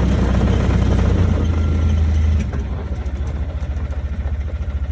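Side-by-side utility vehicle's engine running steadily, then dropping about halfway through to a lower, evenly pulsing idle.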